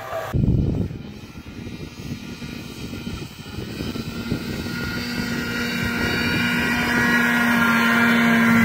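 Arctic Cat snowmobile engine running with a steady drone. It is faint at first and grows steadily louder as the sled approaches.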